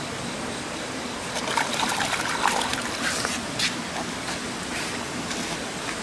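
Flowing river water with a steady rush, and irregular splashing and trickling that is busiest from about one and a half to four seconds in.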